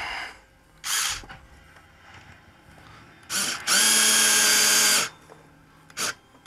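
Cordless drill-driver running in short bursts as it drives screws into a thermostat wall plate. There is a brief whir at the start, another about a second in, then the longest and loudest steady whir, lasting about a second and a half in the middle, and a last short burst near the end.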